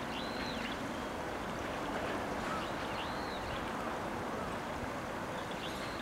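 Steady rush of flowing water in a shallow stream. Three faint, high, arched bird notes sound above it, near the start, about halfway through and near the end.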